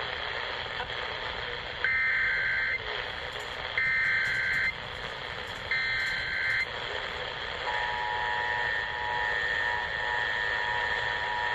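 Emergency Alert System header: three short bursts of SAME digital data tones, each just under a second long and about two seconds apart, followed by the steady two-tone EAS attention signal, with a steady hiss underneath.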